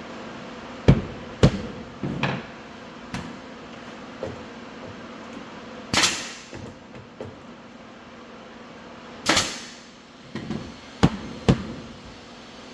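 Hammering on hardwood flooring: about nine sharp knocks at irregular intervals, two of them, about six and nine seconds in, longer and brighter than the rest.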